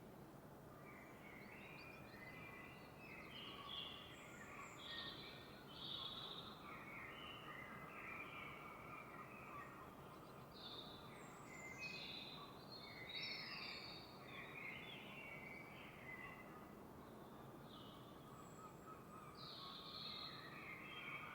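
Faint dawn birdsong: several birds giving short chirps and warbled phrases in overlapping bursts, over a low, even outdoor hiss.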